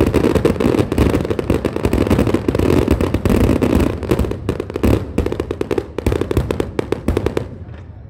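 Fireworks going off in a dense, rapid crackle of many bangs. It thins out over the last few seconds and stops shortly before the end.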